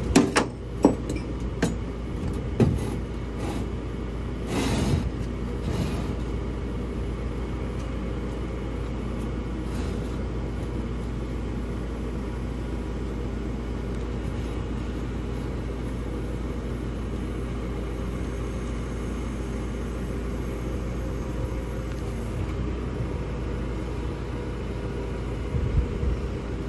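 A vehicle engine idling steadily, with a few sharp metallic knocks and clanks in the first six seconds.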